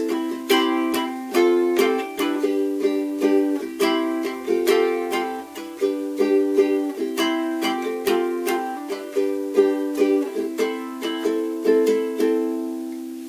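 Cordoba ukulele strummed in a steady rhythm, the chords changing every couple of seconds. Near the end a chord is left ringing and fades.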